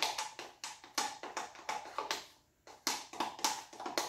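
Wooden stick tapping and scraping against a plastic cup of acrylic paint as the paint is worked out of the cup: a run of quick, irregular clicks, with a short pause about two seconds in.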